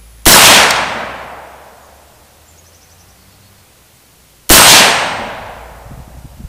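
Two rifle shots from a home-built AR-15 firing 5.56×45 mm 60-grain full metal jacket reloads, about four seconds apart. Each is a sharp, very loud crack with a long echoing tail.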